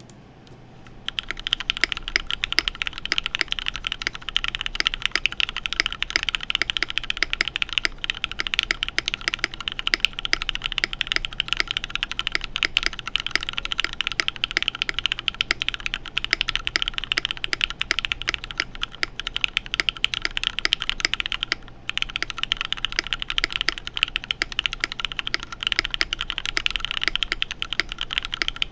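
Fast, continuous typing on a UTD 356 Mini mechanical keyboard with Cherry MX Black linear switches, a full aluminium plate, PBT keycaps and O-ring dampeners. The key presses begin about a second in and pause briefly about three-quarters of the way through.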